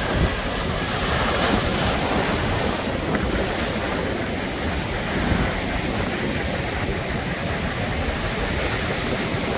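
Sea surf washing and breaking in a steady rush, with wind buffeting the microphone.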